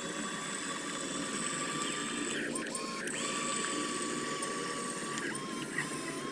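Geared electric motor of a remote-control model whining steadily as it drives, winding down about two and a half seconds in and winding straight back up.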